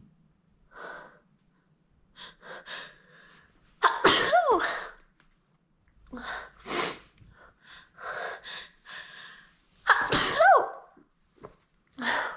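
A woman in a sneezing fit brought on by chhinkni, a sneeze-inducing herb. Short gasping in-breaths build to a loud sneeze about four seconds in. More gasping follows, then a second loud sneeze about ten seconds in and another sharp gasp near the end.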